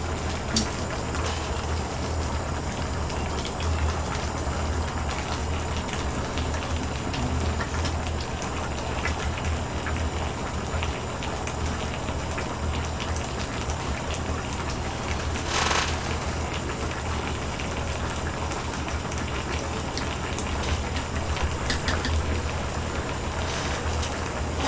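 Kimchi pork-bone stew boiling down in a pot on a portable gas burner: a steady crackling, bubbling hiss, with a low hum underneath. A brief sharp sound cuts in once, about halfway through.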